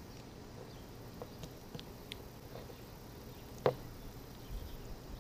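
Small plastic clicks from handling an MC4 solar-cable connector as its pin is pushed into the housing, with one sharp, much louder click about three and a half seconds in, then a couple of soft thumps.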